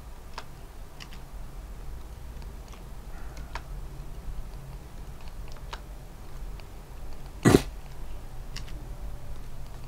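Faint, scattered computer mouse clicks over a low steady hum, with one short, loud burst of noise about seven and a half seconds in.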